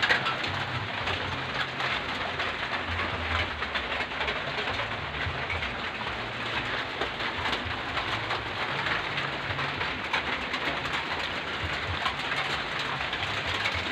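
Steady rain falling, with many separate drops heard close by.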